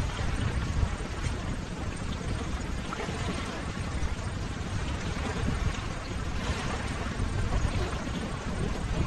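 Ocean waves: a steady wash of surf that swells a little about two-thirds of the way in.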